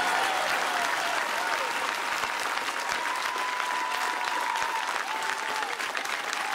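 Large crowd applauding, a dense steady clatter of many hands clapping that slowly dies down.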